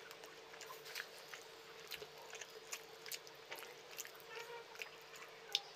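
Close-miked mouth sounds of someone eating rice and chicken gulai: chewing, with soft wet clicks and smacks scattered throughout and one sharper click near the end. A faint steady hum runs underneath.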